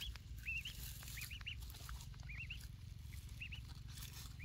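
Ducklings peeping: short, high, arching peeps in twos and threes, repeating throughout, over a low steady rumble.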